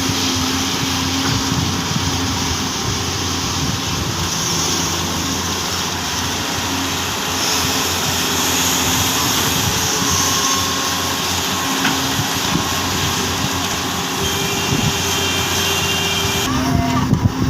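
Doosan excavators' diesel engines running steadily: a continuous drone with a broad hiss over it, and a few knocks near the end.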